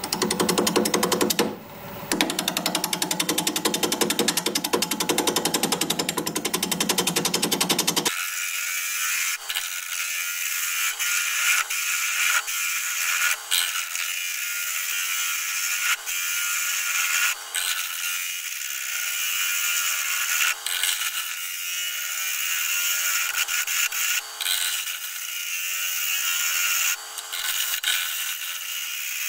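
A bowl gouge cutting the inside of a hard, dense red mallee burl spinning on a wood lathe: a continuous scraping cut with rapid chatter. About eight seconds in, the sound turns thinner and hissier, with intermittent sharper scrapes.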